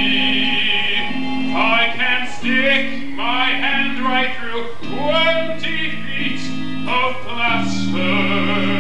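Opera-style song from a live stage show: a voice singing a melody over held accompaniment chords that shift every second or so.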